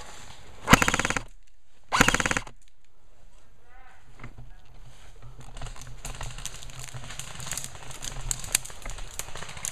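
Airsoft gun firing two short full-auto bursts about a second apart, followed by scattered faint clicks of more distant airsoft fire.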